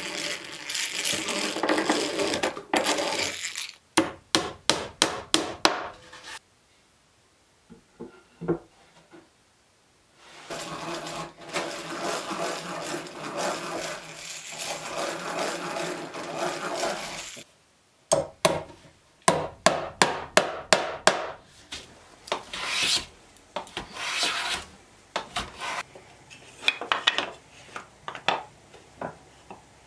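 Hand-cranked eggbeater drill boring into pine, a steady grinding rasp in two long spells. Between the spells come runs of quick sharp clicks, about four or five a second, and a few scattered short scrapes near the end.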